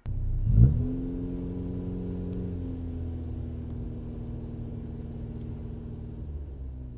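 Car engine heard from inside the cabin, revving up with a rising pitch about half a second in, then running steadily over a low road rumble that slowly fades.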